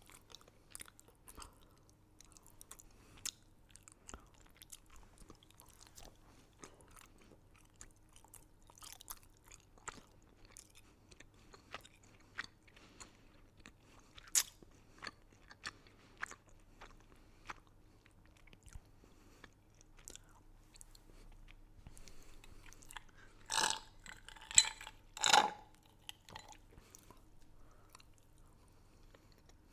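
Close-up chewing and crunching of candy: a steady run of small crisp cracks, with three louder crunches about twenty-four seconds in.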